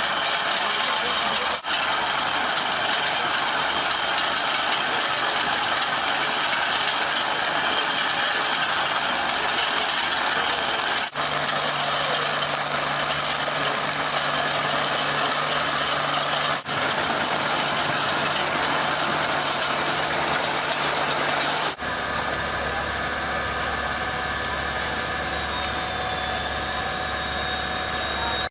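Heavy machinery engines running steadily, in a string of short clips joined by four abrupt cuts; the last clip has a different, smoother sound with some steady tones.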